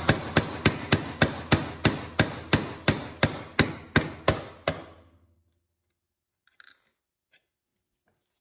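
Ball-peen hammer tapping a steel punch, about three even strikes a second, driving a 3mm roll pin out through the shell deflector and upper receiver of a rifle resting on a Delrin block. The tapping stops about five seconds in, followed by a single faint clink.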